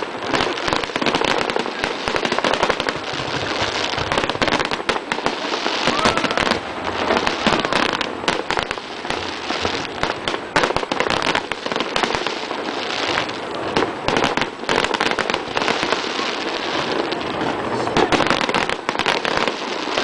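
Fireworks display going off continuously: a dense run of bangs and crackling with no let-up.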